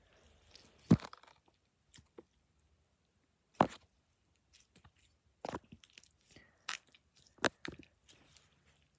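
Slime being squished and poked close to the microphone, giving scattered sharp crackles and pops: a strong one about a second in, another near four seconds in, and a quick run of smaller ones between about five and a half and eight seconds.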